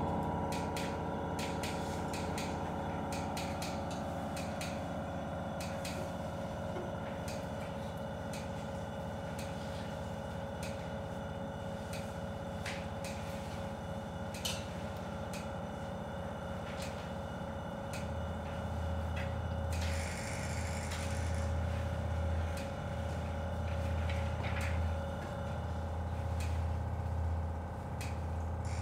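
Live electronic drone played through loudspeakers: layered steady tones with a fine crackle of clicks. About two-thirds of the way through, a deep bass tone joins in, swelling and fading in slow pulses every second or two.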